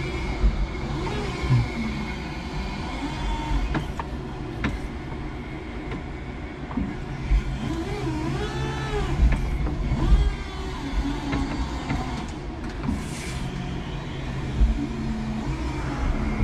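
5-ton electric forklift working: a steady electric hum, with a motor whine that rises and falls in pitch about halfway through as the load of boards is set down and the truck backs off, and a few sharp clicks and knocks.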